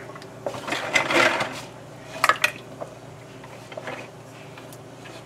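Kitchen handling at a pot of cooked jumbo pasta shells: a brief scrape about a second in, then two sharp clinks of a utensil against the pot just after two seconds, and a few faint knocks later, over a low steady hum.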